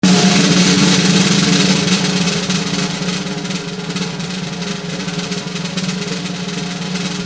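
Added music: a continuous rapid snare drum roll, a little louder in the first two seconds.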